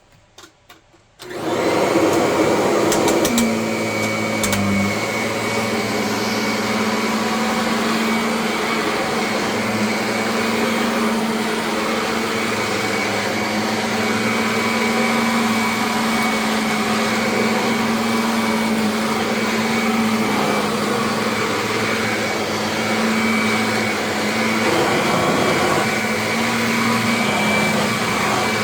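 Kirby vacuum cleaner switched on about a second in, then running steadily with a constant motor hum and rush of air. A few brief clicks sound a few seconds after it starts.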